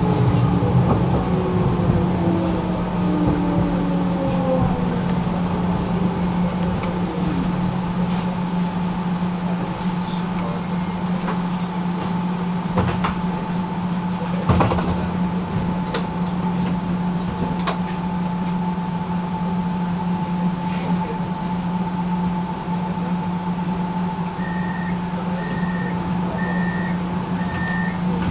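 Inside a tram: the electric drive's whine falls in pitch over the first few seconds as the tram slows, over a steady hum, with occasional sharp clicks and knocks. Near the end comes a run of about five short beeps, roughly one a second.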